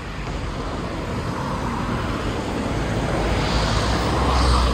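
Street traffic: a motor vehicle's engine and tyre noise grows steadily louder and peaks near the end as it passes close.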